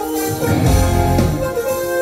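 A hard rock band playing live through a large PA: sustained chords over a steady drum beat, recorded from the audience.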